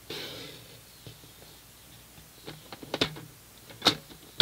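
Sliding paper trimmer cutting a short slit in cardstock: a soft scrape as the blade carriage is drawn along the rail, then several sharp clicks and knocks of the carriage, the loudest about three and four seconds in.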